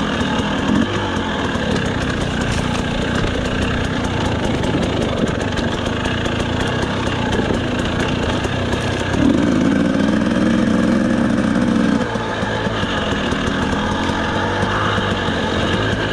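FPV quadcopter's electric motors buzzing steadily. The pitch and loudness rise for about three seconds past the middle as the throttle goes up, then settle back.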